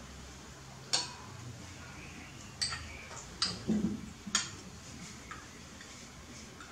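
Spoon clinking against a small ceramic bowl while eating, four sharp separate clinks within about three and a half seconds.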